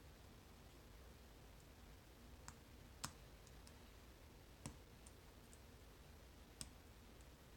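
Faint, scattered metallic clicks of a lock pick and tension wrench working the pin tumblers of an old Master Lock No. 7 laminated padlock. A few sharper clicks stand out among softer ones, the loudest about three seconds in.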